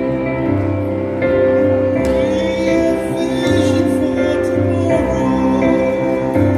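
Music playing: sustained chords over a bass line that changes note about once a second.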